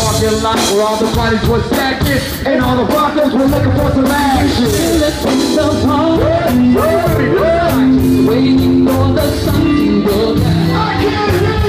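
Live band playing a funky hip-hop groove on drums, bass, guitar and keyboard, with a voice singing a melodic line over it, loud in a large hall.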